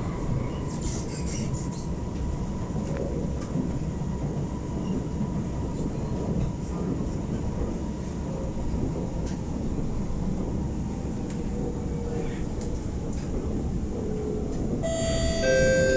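Cabin noise of an Alstom R151 metro train running along the track: a steady low rolling rumble with a faint, even whine. Another train passes close alongside near the start. A chime of several steady tones sounds near the end.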